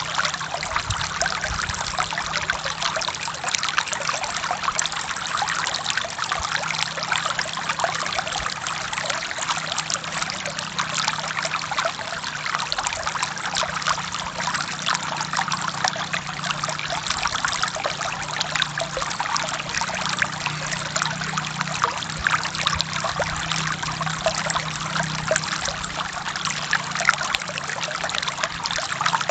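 Forest stream flowing steadily over rocks, a continuous trickling and splashing with no letup.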